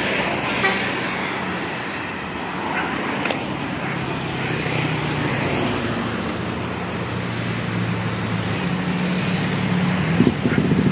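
Motor vehicle engine running with road traffic noise, and a rhythmic engine beat coming in near the end.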